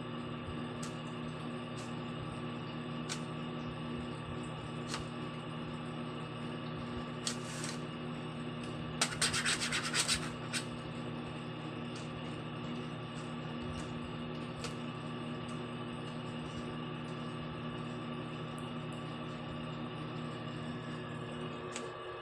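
Plastic stylus scratching and tapping on a toy magnetic drawing board, with a louder rasping scratch for about a second and a half some nine seconds in, over a steady hum.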